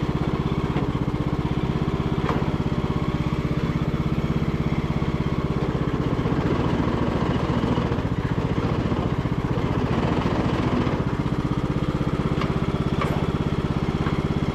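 Engine of an MTD-built Bolens riding mower running steadily, with a rougher, noisier stretch from about six to eleven seconds in, while the drive is engaged; the mower barely moves in forward, which the owner takes for a slipping drive belt.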